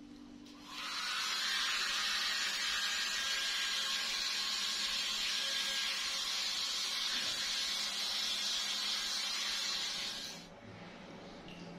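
Small hand-held hair dryer running, a steady even hiss that starts about a second in and cuts off about ten seconds in. After it, faint water sounds from a bathtub.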